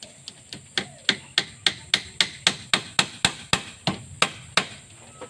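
A claw hammer striking a nail into a wooden board: a few light taps, then a quick, steady run of about fourteen hard blows, roughly four a second, stopping just before the end.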